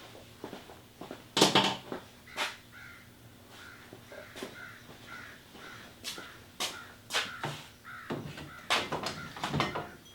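Screwdriver and hands prying at a plastic throttle-cable distribution box on a motorcycle: irregular clicks, knocks and scrapes, loudest about a second and a half in and again in a cluster near the end.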